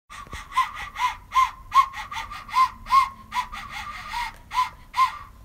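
Plastic toy recorder blown in short, breathy toots on one high note, about two or three a second, each note bending up and back down in pitch.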